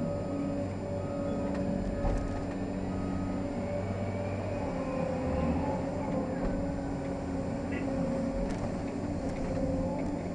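Caterpillar 385C excavator's diesel engine and hydraulics running under load, heard from inside the cab, a steady drone with a whine as the loaded bucket swings. A short beep repeats several times in the first few seconds.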